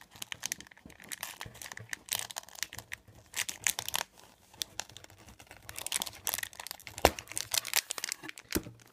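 Clear plastic bag crinkling and rustling as hands handle and open it to get a pin out: irregular crackles throughout, with a sharp snap about seven seconds in.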